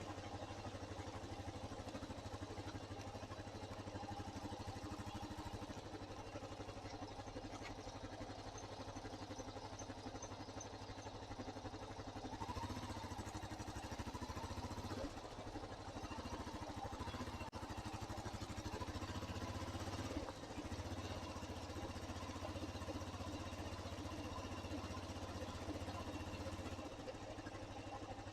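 Motorcycle engine running steadily while riding, with a low hum that shifts a little in pitch and level partway through.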